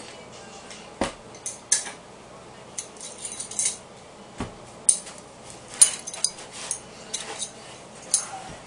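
Metal throwing knives clinking against one another in a string of sharp metallic clicks as they are pulled one by one out of a wooden 2x4 target and gathered in the hand, with a couple of heavier knocks among them.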